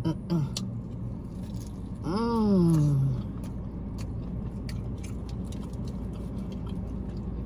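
Close-up chewing of fried chicken wings, with scattered wet mouth clicks. About two seconds in comes a short falling 'mmm' of enjoyment. A steady low hum runs underneath.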